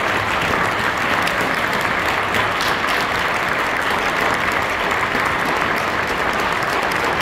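Steady, dense audience applause.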